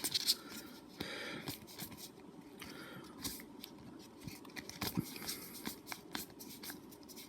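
Soft rustling and small clicks of Magic: The Gathering cards being handled and flipped through.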